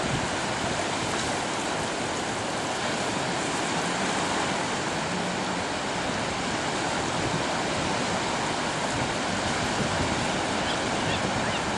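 Small ocean waves breaking and washing through the shallows: a steady rush of surf with no pauses.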